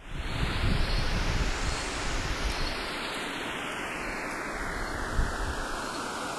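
Synthesized noise sweep like an ocean-wave whoosh: a hiss that brightens for about two seconds, then slowly darkens and settles into a steady muffled wash with low rumble underneath.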